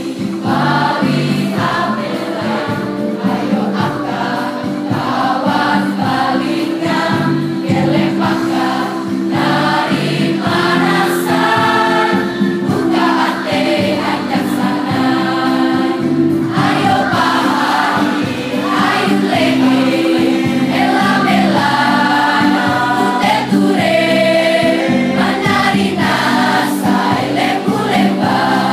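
A large mixed school choir of teenage boys and girls singing together, loud and continuous.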